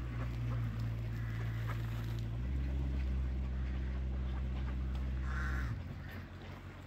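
A few short bird calls over a loud, low, steady hum. The hum changes note about two seconds in and stops suddenly about a second before the end.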